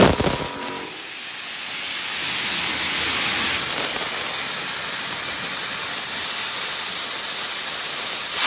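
Compressed air hissing steadily from the high-pressure compressor setup. The hiss builds over the first three seconds or so, then holds level.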